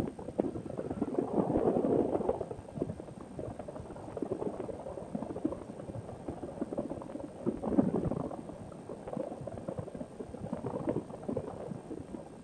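Wind buffeting the microphone of a paramotor trike gliding with its engine dead, swelling in gusts about a second in and again near the middle, with a light crackle. No engine is running.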